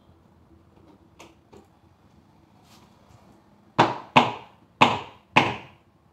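Four sharp knocks on a wooden bed frame as a panel is knocked into place during assembly, each about half a second apart and ringing briefly in the room. They follow two faint taps.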